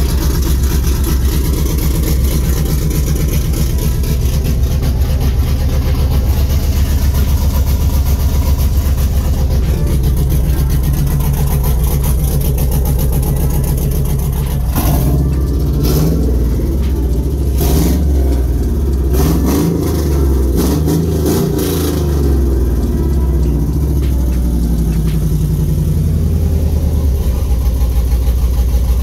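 Pickup truck engine running with freshly installed long tube headers. It idles steadily, is revved up and down several times around the middle with a few sharp cracks among the revs, then settles back to idle.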